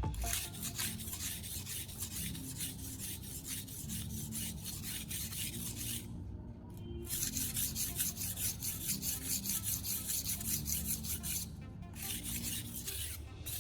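Knife blade stroked back and forth on a fine 3000-grit whetstone wet with a baking soda paste: a quick run of gritty scraping strokes. The strokes break off about six seconds in and resume a second later.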